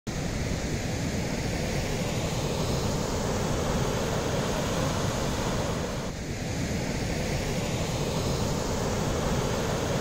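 Steady roar of a waterfall, a dense rush of falling water that dips briefly about six seconds in.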